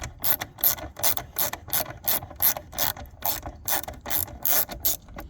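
Ratchet driver with a T25 Torx bit clicking steadily, about four clicks a second, as it backs out a rear lamp cluster screw.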